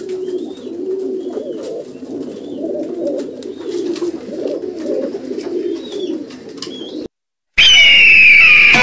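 Mookee (mukhi) pigeons cooing continuously in low, warbling coos. They cut off about seven seconds in, and after a brief silence loud music begins.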